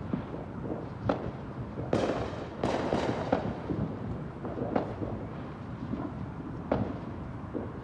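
Fourth of July fireworks going off, with sharp bangs every second or two over a continuous low rumble, and a stretch of crackling around the middle.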